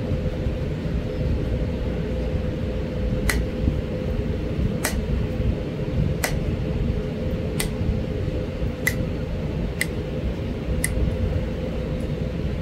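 Seven sharp ticks as small flakes snap off the base of a Florida coral arrowhead being knapped, one about every second and a half, over a steady low rumble and hum.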